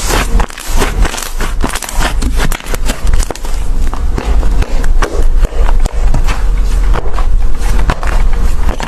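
Slime being squeezed and poked close to the microphone, with dense crisp clicks and crackles and a low rumble from handling.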